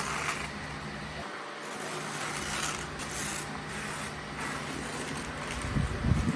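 Packaging being unwrapped and handled by hand: rubbing, rustling and scraping of the wrapping around a newly delivered potted plant, with a few low thumps near the end.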